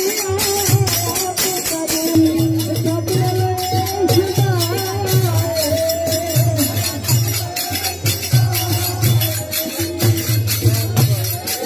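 Sikh devotional kirtan: voices singing a wavering melody over a steady drum beat and loud jingling metal percussion.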